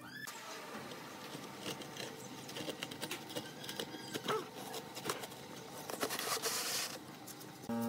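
Scratchy rubbing and scraping of hand work on fresh cement render, with many small clicks and taps. A short steady buzzing tone starts just before the end.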